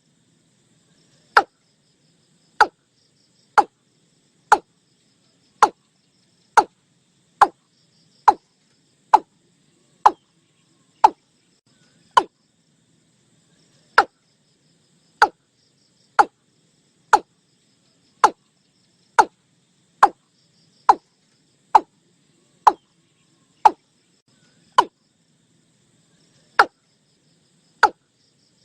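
Watercock calling: a long series of short, sharp, slightly downward-sliding notes, about one a second, with two brief pauses. A faint high insect hum and a faint low chorus lie underneath.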